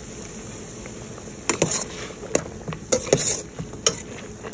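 A metal utensil stirring in an aluminium pot of boiling soup, knocking and clinking against the pot's side in a string of sharp, irregular strikes that start about a second and a half in, over a steady low hiss.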